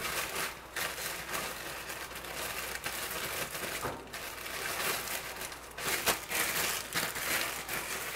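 Plastic bread bag crinkling as it is handled and opened: a continuous rustle with a few louder crackles.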